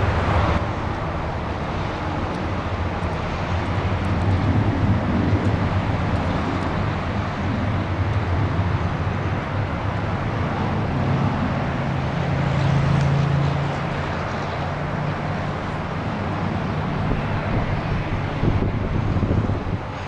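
Boeing 737-800's twin jet engines running, a loud steady rush of noise with a low hum that swells about eleven to fourteen seconds in.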